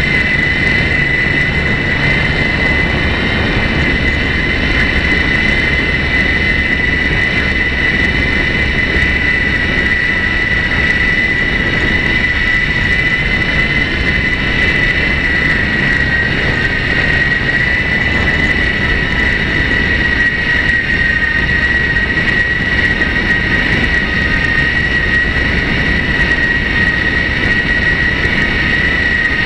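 Radio-control model airplane's motor and propeller running steadily in flight, heard as a high whine from the onboard camera's microphone, with wind rumbling on the mic.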